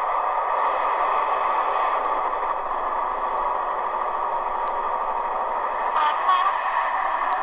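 Hornby TXS HM7000 sound decoder playing its Class 55 Deltic profile through the model locomotive's small speaker: the diesel engine idling steadily, thin and mid-pitched with little bass. A couple of brief clicks come about six seconds in.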